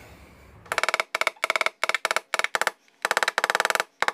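A small hammer tapping a knockdown tool against a car door panel: short bursts of quick, ringing taps, starting under a second in. The taps knock down a raised spot left by glue-pulling the dent.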